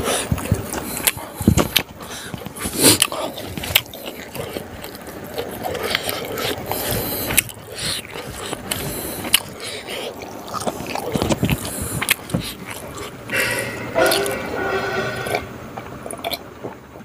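Close-miked eating: wet chewing, lip smacking and fingers working rice on a leaf, a run of short smacks and clicks, with a drink gulped from a glass near the end.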